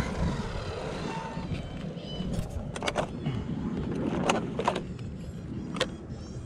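Steady low rumble of wind on the microphone, with a few sharp clicks and knocks as the 1/10 RC monster truck's plastic body shell is gripped and pulled off its chassis.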